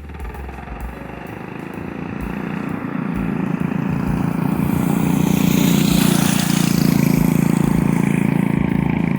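212cc single-cylinder engine of a CT100U mini bike running under way, growing louder over the first five seconds and then holding steady. The engine has a new billet rod and flat-top piston and is being run gently to break them in.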